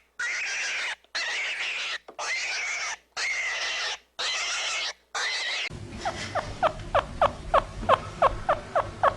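Animal calls: a harsh call about a second long, repeated at an even pace. About six seconds in, it gives way to a rapid series of short, falling squeaks, several a second.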